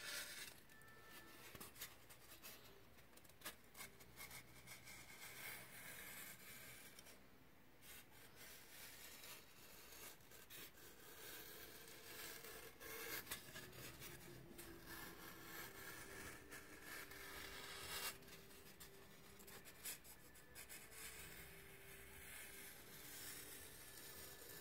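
Snap-off utility knife shaving pink foam in short, irregular strokes: faint scraping and rubbing of the blade through the foam.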